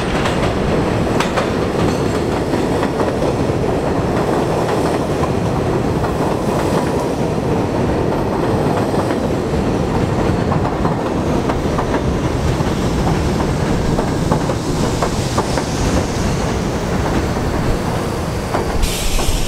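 R68A subway train pulling into an elevated station alongside the platform: a steady rumble of steel wheels on the rails with clicks over the rail joints. A sudden high hiss starts near the end.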